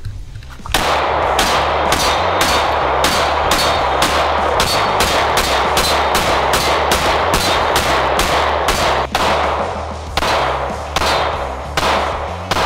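AREX Delta X 9mm pistol firing a rapid, evenly paced string of shots, about two to three a second, starting about a second in.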